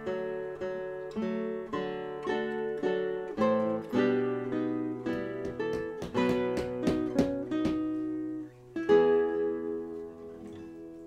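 Background music: a solo acoustic guitar playing a classical piece in plucked notes and chords. The notes come quicker in the middle, and a chord rings out and fades near the end.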